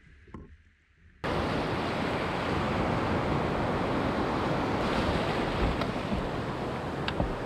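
Loud steady rush of water and wind buffeting the microphone as a small outboard skiff runs out through breaking surf, starting abruptly about a second in after a faint stretch.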